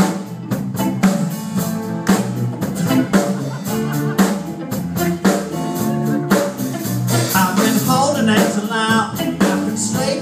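Live band playing: guitar over bass and a steady drum beat.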